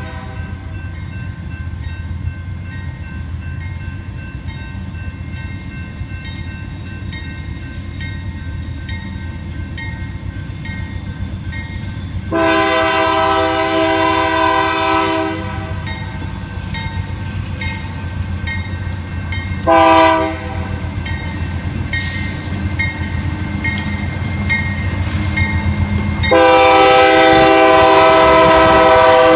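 Union Pacific freight train led by a GE AC44CW diesel locomotive approaching. Its air horn sounds a long blast about 12 s in, a short one about 20 s in and another long one from about 26 s in: the close of the long-long-short-long grade-crossing signal. Between blasts the diesel engines rumble steadily, growing louder as the locomotives draw level.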